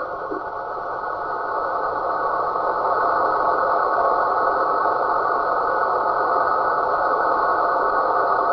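Radio receiver audio: a steady, noisy signal with many fine steady tones through it, filling the middle of the range, dipping a little at the start and building back within a few seconds. It is the sound nicknamed the snoring sasquatch.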